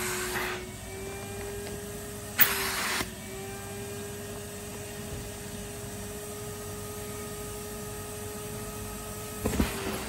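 Upright vacuum cleaner running steadily through its hose attachment, with a steady motor hum. About two and a half seconds in there is a brief loud rush of air at the nozzle while the motor pitch dips, and a few knocks come near the end.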